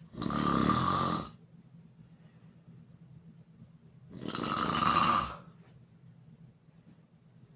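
A person snoring in sleep: two loud snores about four seconds apart, each lasting just over a second.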